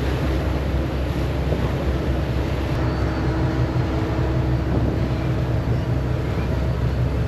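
Passenger ferry's engine droning steadily while under way, with an even rushing noise over it.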